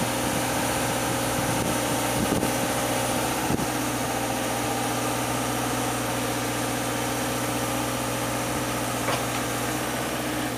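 Engine of a 2007 JLG 800AJ articulating boom lift running steadily while the platform is lowered and swung on its hydraulics.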